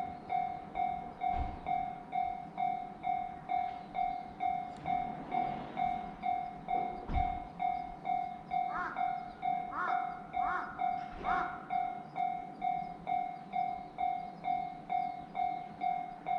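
Japanese level-crossing warning bell ringing its steady 'kan-kan', about two strikes a second, each a single clear tone. Four short chirps sound over it from about the middle of the stretch.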